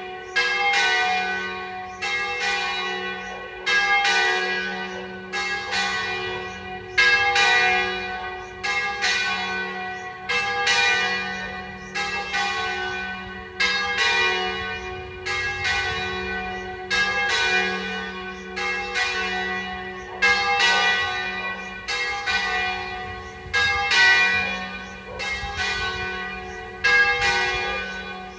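Two church bells tuned to F#3 and G#3, rung in the Italian 'alla trevigiana' style, striking alternately a little under a second apart. Each stroke rings on into the next over a steady low hum.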